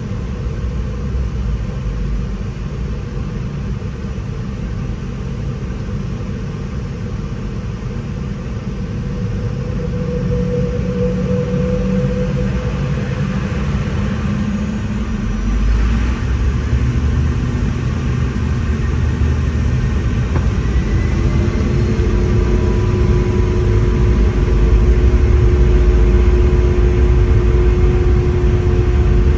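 Boeing 717's Rolls-Royce BR715 jet engines running with a heavy low rumble that grows steadily louder, with several steady engine tones rising slowly in pitch.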